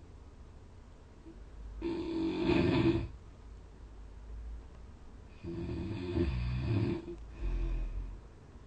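A sleeping person snoring loudly: one long snore about two seconds in, then another about five and a half seconds in, followed closely by a shorter one.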